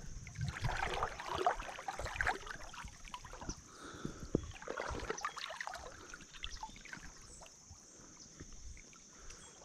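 Water sloshing and splashing around a wader's legs in a fast, flood-high river current, in irregular bursts that are busiest over the first few seconds and then thin out.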